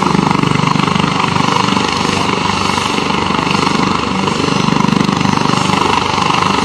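Helicopter running on the ground with its engines going and rotors turning: a loud, steady turbine and rotor noise with a fast, even pulsing from the blades.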